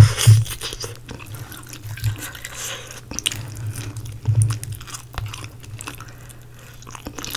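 Close-miked eating of crispy spicy fried chicken: crunching bites of the fried skin and wet chewing, with the loudest crunches just at the start and again about four and a half seconds in.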